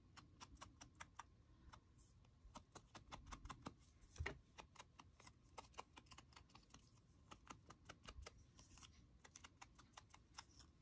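Faint, quick, irregular tapping of a paper card's edges being dabbed with ink, several small taps a second, with one firmer knock about four seconds in.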